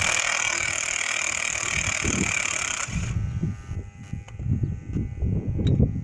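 Cordless impact wrench running on a lug nut in a steady rattling buzz that cuts off suddenly about three seconds in, followed by low knocks and handling noise at the wheel.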